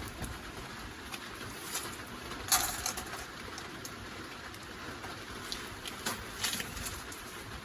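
Wood fire burning in a Picogrill-style fire stand, crackling with scattered pops; the loudest pop comes about two and a half seconds in.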